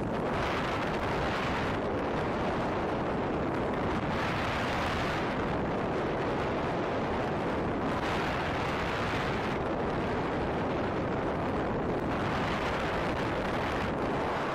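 Wind rushing over the microphone of a camera mounted on an RC plane in flight: a steady rumbling noise, its hiss swelling and easing about every four seconds.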